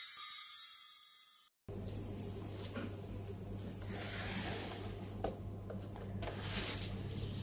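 A bright, sparkling chime jingle fades over the first second and a half and then cuts off abruptly. A steady low hum follows, with faint taps and rubbing as a cardboard toy box is turned by hand on a tabletop.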